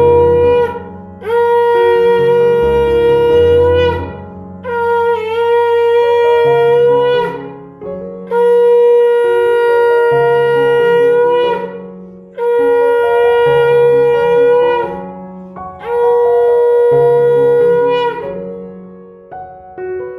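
Devotional background music: a wind instrument plays six long held notes of the same pitch, each about three seconds with short breaks between them, over a low sustained keyboard accompaniment.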